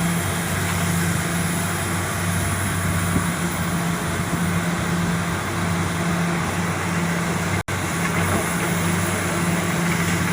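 Large diesel engine of a Komatsu PC400 hydraulic excavator running steadily with a low, even drone. The sound cuts out for an instant about three-quarters of the way through.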